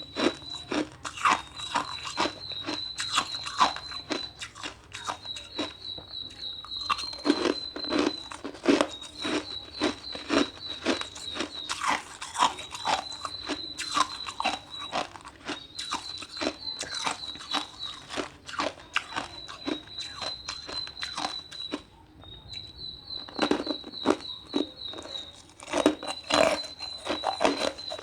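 Ice being bitten and chewed, an irregular run of sharp crunches close to the microphone. Behind it, a high thin trill of a second or two repeats every couple of seconds.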